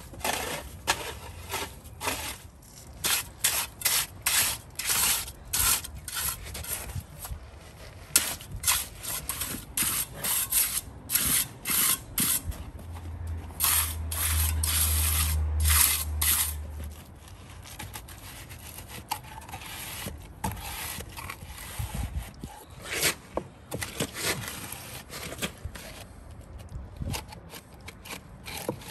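Trowel and wooden tamper scraping and packing a stiff, crumbly concrete mix: a quick run of short scrapes, about two a second, thinning out in the second half. A low hum comes in for a few seconds in the middle.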